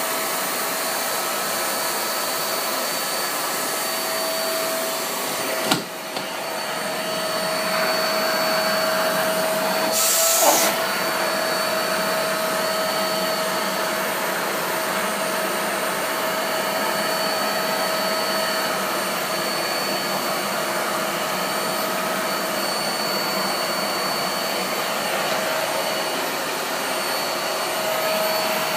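Vacuum cleaner running steadily with a constant whine over its suction noise. About six seconds in, a sharp click and a brief drop in the sound. Around ten seconds in, a short higher hiss as the suction changes.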